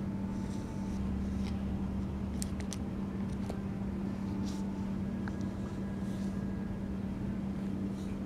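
A steady low hum, with a few faint light clicks scattered through it, three of them in quick succession about two and a half seconds in.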